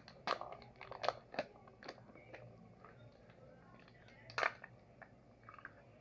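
Crinkling and clicking of the plastic packaging around a printer print head as it is peeled open and the head is lifted out of its plastic holder. There are several sharp crackles, with the loudest about four and a half seconds in.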